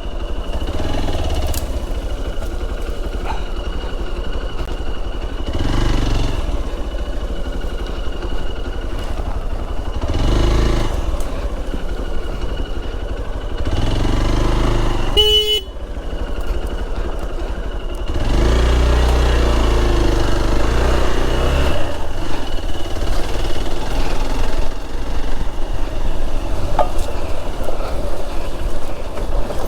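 Hero XPulse motorcycle's single-cylinder engine running under way on a rough off-road trail, swelling and easing several times with the throttle. A short horn beep comes about halfway through.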